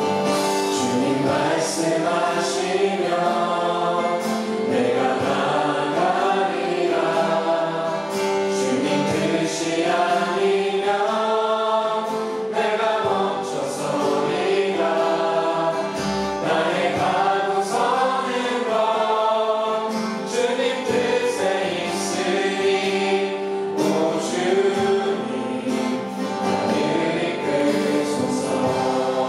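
A worship team singing a Korean praise song, male and female voices together, over acoustic guitar accompaniment.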